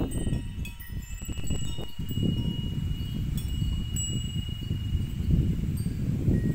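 Metal wind chimes ringing, several thin high notes overlapping and fading, over wind buffeting the microphone with a steady low rumble.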